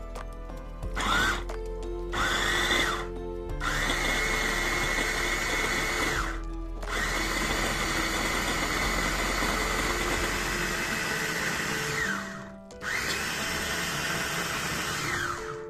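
Electric mini food chopper's motor whirring in pulses: a brief blip about a second in, then four longer runs, the longest lasting about five seconds. Each run rises in pitch as the blade spins up and falls as it stops, as it blends yogurt and basil into a smooth sauce.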